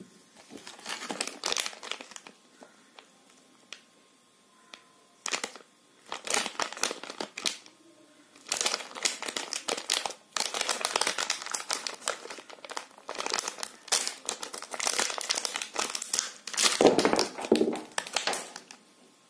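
Crinkling of a Cadbury Shots wrapper, a foil-lined plastic packet, as hands handle it and tear it open. The crackling comes in bursts with short pauses, is almost continuous in the second half and is loudest near the end.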